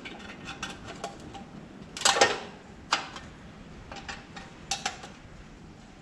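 Scattered small clicks and knocks from a toolbox cover being fitted onto a Motobécane moped's frame. A short clatter about two seconds in is the loudest.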